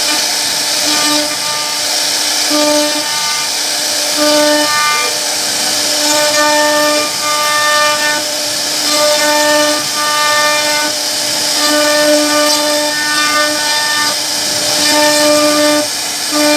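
CNC router spindle running and milling a carved relief into wood, a steady high hiss of cutting. Over it a low machine whine of one fixed pitch comes and goes in spells of half a second to two seconds.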